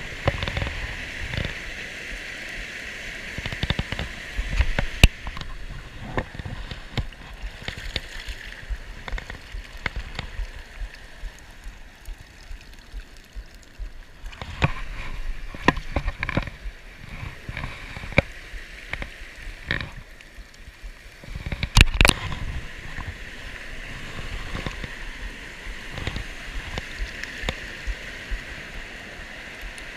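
Steady rush of a small stream pouring over a culvert spillway, with irregular splashes, sloshes and sharp knocks as a wooden dip net is swept through the shallow water and handled. The loudest knocks come about five seconds in and as a close pair past the twenty-second mark.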